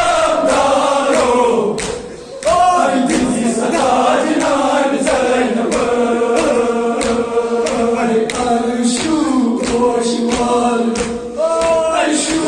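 A group of men chanting a Kashmiri noha, a Muharram lament, in unison in long drawn-out melodic lines. Sharp beats about twice a second keep time under the singing, which breaks briefly about two seconds in before the next line starts.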